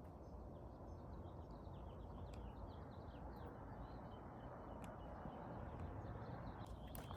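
Faint bird chirps, many short quick calls in the first half, over a low steady outdoor rumble.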